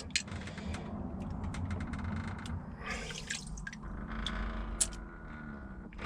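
Hydrogen peroxide dripping and small plastic clicks as wet Lego pieces are lifted out of their soak and handled.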